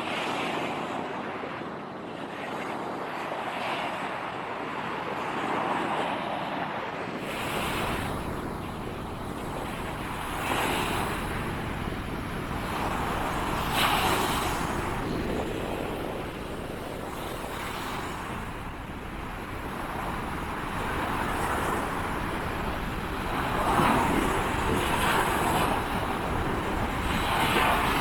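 Surf on a beach: waves breaking and washing in, swelling every few seconds, with wind buffeting the microphone as a low rumble from about seven seconds in.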